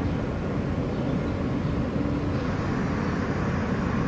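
Steady low hum of an R160A subway car standing in a station with its doors open, heard from inside the car.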